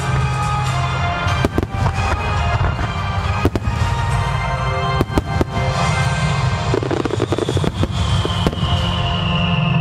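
Aerial fireworks bursting: a series of sharp bangs and crackles over the show's music soundtrack, with a high tone gliding down near the end.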